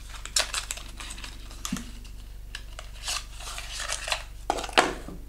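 Small cardboard cosmetics box being opened and handled: a run of light clicks, taps and paper rustles as the flap is pulled and the product slid out, with one sharper snap near the end.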